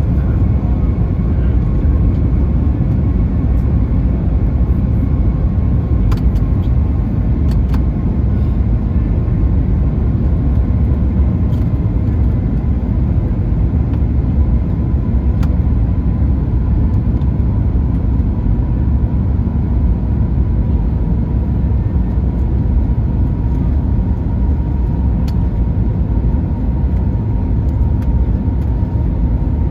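Steady low roar inside an Airbus A320 cabin: engine and airflow noise, with a faint thin whine running through it and a few small clicks.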